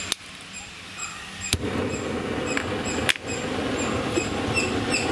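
Single-burner LPG gas stove being lit: a sharp click at the start, another about a second and a half in as the burner catches, then the steady rush of the burning gas flame, with one more click about three seconds in.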